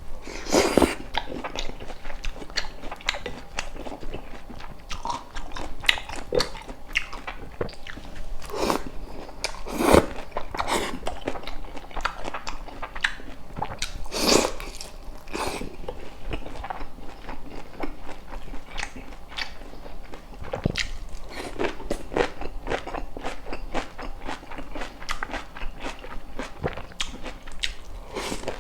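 A person chewing crunchy food close to the microphone, with a steady run of irregular crunching bites and a few louder crunches.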